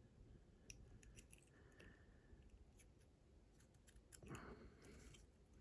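Near silence with faint, scattered small clicks and a brief soft rustle about four seconds in: thin wires being handled and fed through the holes of crimp connectors.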